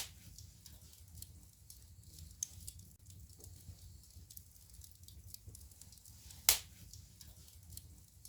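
Wood fire in a fireplace crackling, with many small snaps and two louder pops, one right at the start and one about six and a half seconds in, over a low steady rumble.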